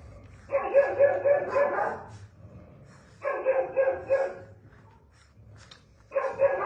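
Dog barking in three quick runs of several barks each, the first about half a second in and the last near the end, with short pauses between.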